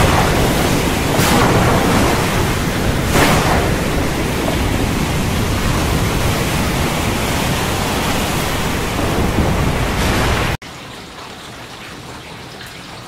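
Thunderstorm: a loud steady rush of heavy rain with sharp thunder cracks at the start, about a second in and about three seconds in. Late on it cuts abruptly to quieter, steady rainfall.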